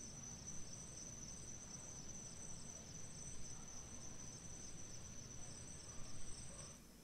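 Evening chorus of crickets: a steady high trill with a second, pulsing trill above it, over a low rumble that drops away just before the end.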